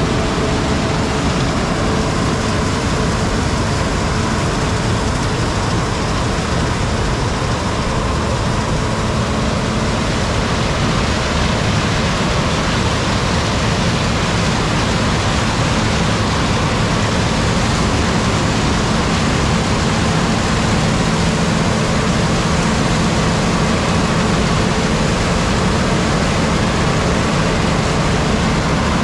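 Heavy farm harvest machinery running steadily, a continuous loud engine and machine drone with a faint hum in it. It grows a little brighter and the hum a little stronger about ten seconds in.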